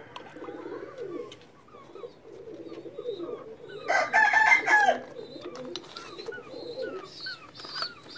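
Pigeons cooing steadily, with small birds chirping, and one loud bird call about four seconds in that lasts about a second.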